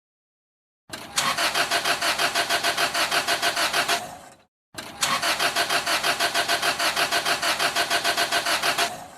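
Car engine cranking on the starter motor in two attempts of about three and a half and four and a half seconds, with an even chugging of about five compression pulses a second. Each time it stops without the engine catching: a crank-no-start.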